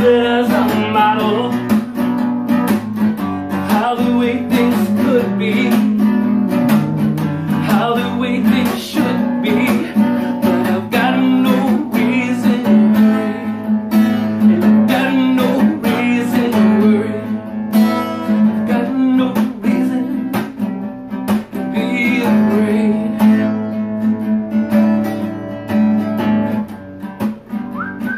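Acoustic guitar strummed in a steady rhythm, playing chords through an instrumental passage of a song.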